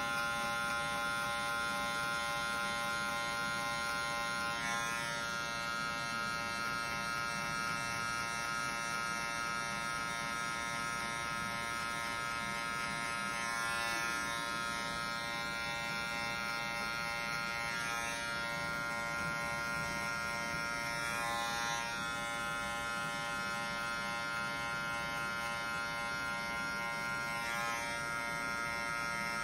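TRU cordless hair clipper with a guard comb, running with a steady electric buzz as it is drawn up through short hair at the back of the head. Its tone dips briefly a few times.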